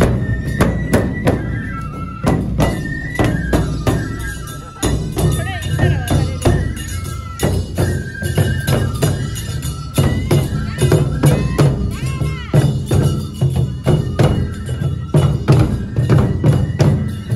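Japanese festival hayashi music in the Aomori Nebuta style, played live: bamboo transverse flutes repeat a high melodic phrase over steady beats of large taiko drums.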